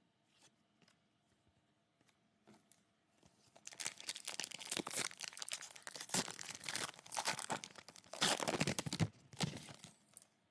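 A trading card pack wrapper being torn open and crinkled, starting about three and a half seconds in, with the loudest tearing near the end; a few light clicks come before it.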